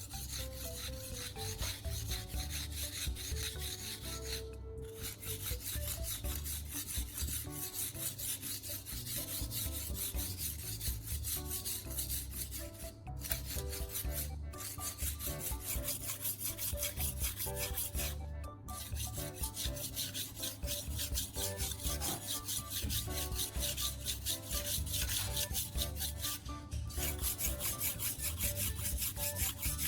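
Steel knife blade rubbed back and forth on the fine 800-grit side of a wet whetstone under a baking-soda paste, a steady, continuous scraping with a few brief pauses between strokes.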